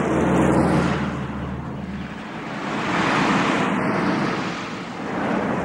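A column of old cars, among them Mercedes-Benz saloons, driving past one after another: engine hum and tyre noise swelling as the first car passes, then again about three seconds in as the next car comes by.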